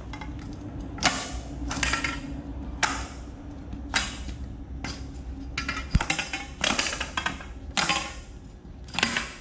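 Soft copper tube being rolled back and forth under boot soles on a concrete slab to straighten it: a short metallic rasping scrape roughly once a second, with one sharp click about six seconds in.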